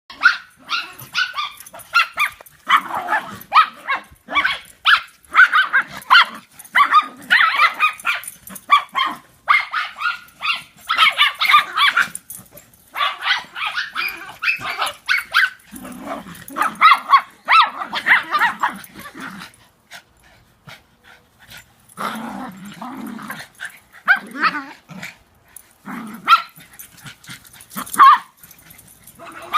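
Dogs barking and growling in rough play while chasing each other, in rapid runs of short barks with a brief lull about two-thirds of the way through.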